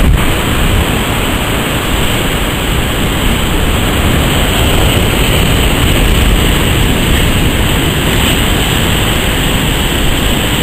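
Steady rushing noise of heavy surf and churning whitewater at a river mouth, waves breaking and washing against a rock breakwall.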